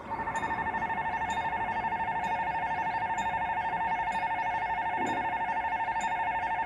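Korean railroad crossing's electronic warning bell switching on and ringing steadily in a fast, even pulse: the crossing signal warning of an approaching train.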